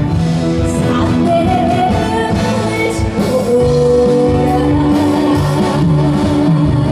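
Live band playing a Korean trot song with a steady beat and held melody notes.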